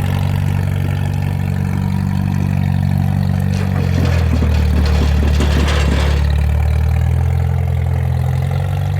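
Rock crawler's engine idling steadily. About four seconds in, its note shifts and grows a little louder for a couple of seconds, with some clatter, then settles back.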